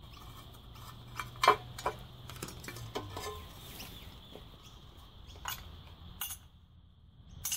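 Scattered metal clinks and clanks as a bench grinder's steel wheel guard is worked loose with a screwdriver and lifted off, the sharpest clank about a second and a half in.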